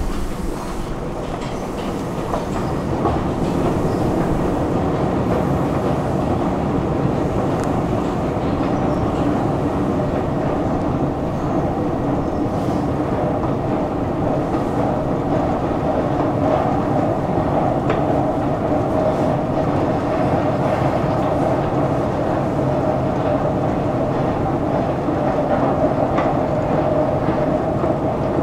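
Long subway escalator running during a ride down: a steady mechanical rumble and hum from the drive and moving steps. It grows louder about three seconds in, with a few faint clicks.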